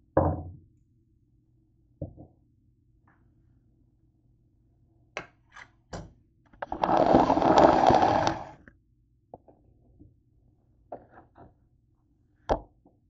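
Kitchen handling sounds: a thump as something is set down on the countertop, then scattered knocks, and about six seconds in a loud noisy rush that lasts about two seconds.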